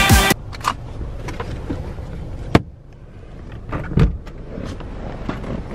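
Music cuts off abruptly, leaving a low car-cabin rumble with scattered clicks and knocks as the camera is handled. There is a sharp click about two and a half seconds in and a couple of thumps about four seconds in.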